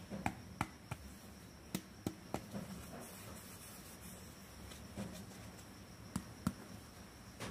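A dozen or so irregular sharp clicks and light taps of small plastic toy pieces being handled, over a faint steady high-pitched whine.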